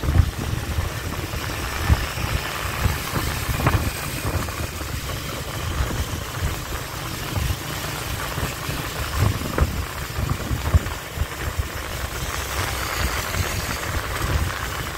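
Motorbike engine running while riding along a road, with a steady low rumble of engine and road noise.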